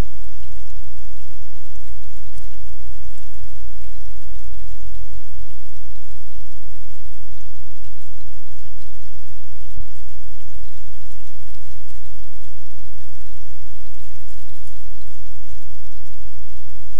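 Steady rushing of a creek heard through a trail camera's microphone, loud, with a heavy low rumble. Two faint ticks come about two and ten seconds in.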